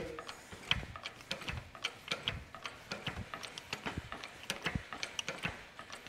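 Irregular light clicks and ticks from a jack-driven wire-tension test rig as load builds on high-tensile fencing wire joined with a Tex Brown knot.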